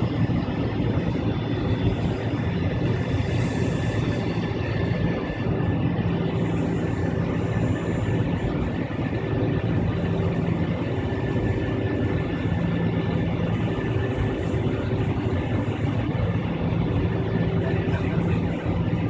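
Avro RJ100 turbofan engines heard from inside the cabin, running steadily at low power as the jet taxis: a constant hum with a few held tones.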